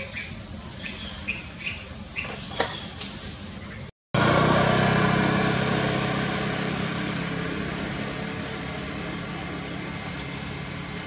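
Small birds chirping in short high notes for the first few seconds; then, after a brief dropout about four seconds in, a loud steady mechanical rumble starts abruptly and slowly fades.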